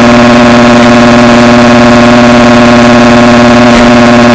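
Dirt bike engine revved up and held at a steady high pitch with the throttle twisted open, very loud.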